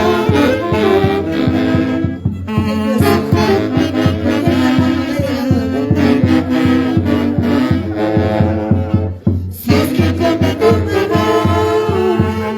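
Live band playing an instrumental passage, with wind instruments carrying the melody over a steady beat; the music breaks off briefly about nine seconds in and comes straight back.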